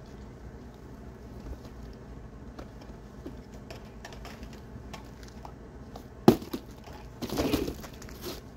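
Objects being handled while boxes are sorted, with scattered small clicks and knocks. There is one sharp knock about six seconds in, and a short rustling clatter about a second later.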